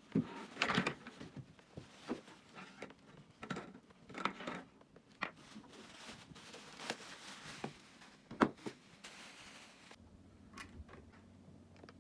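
Irregular clicks, knocks and rustles of objects being handled, with one sharper knock a little past the middle; a faint low steady hum comes in near the end.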